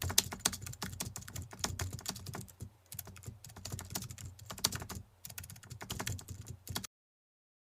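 Rapid, irregular clicking, like keys typed on a keyboard, fairly faint. It stops dead a little before the end.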